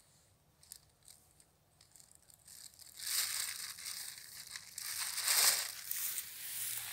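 Thin plastic carrier bag crinkling and rustling as it is gathered by its handles and lifted with the fish inside, starting about three seconds in and loudest near the end.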